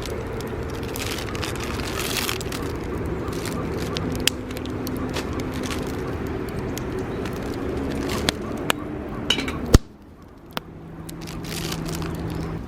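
Campfire of scrap wood burning, with scattered sharp pops and cracks over a steady low hum; the loudest pop comes near the end, after which the sound drops away suddenly.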